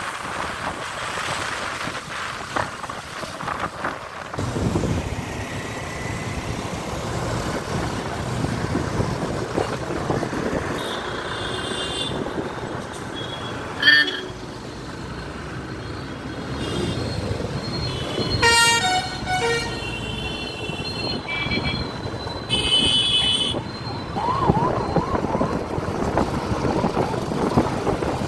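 Road traffic heard from a moving motorcycle, a steady rumble of engines and tyres. Vehicle horns honk several times through the middle, one short sharp blast the loudest.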